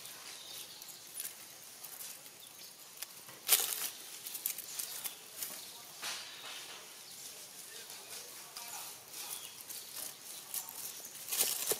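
Dry fallen leaves crackling and rustling under a macaque's steps and hands as it forages, with a louder crunch about three and a half seconds in and another near the end.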